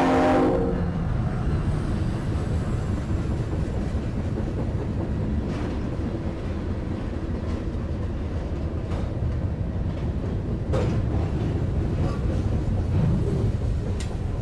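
A train horn cutting off about half a second in, then the train rolling through a grade crossing: a steady low rumble of wheels on rail with a few sharp clicks.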